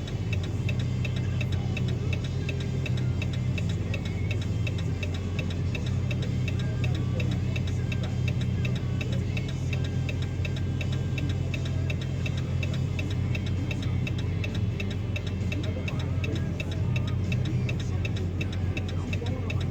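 Car engine idling with a steady low hum, under a regular, fast ticking.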